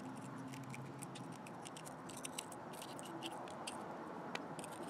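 Small screwdriver tip picking and scraping shattered protective glass out of a camera lens cap: faint, irregular little clicks and ticks, with one sharper click near the end.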